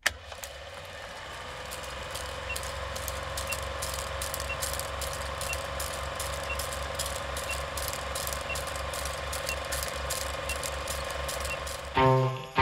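Old film projector running with a steady whirring clatter and a fast flutter, with crackle and a short faint beep about once a second as the countdown leader runs. Guitar music starts near the end.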